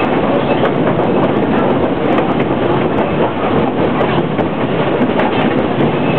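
Cumbres and Toltec narrow-gauge train running, heard from aboard: a steady rumble of wheels on the rails with scattered clicks.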